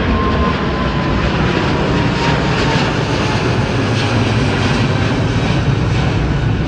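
Jet engines of a KLM twin-engine airliner at takeoff power, a loud steady rumble as it climbs away overhead.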